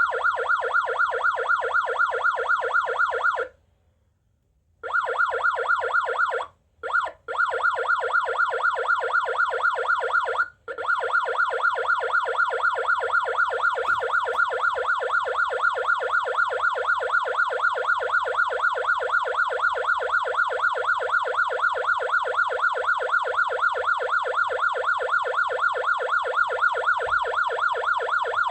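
Patlite SAP-500FBVZ electronic siren amplifier sounding a fast siren tone that sweeps up and down several times a second. It is switched off for about a second a few seconds in, and briefly several more times before it runs on steadily.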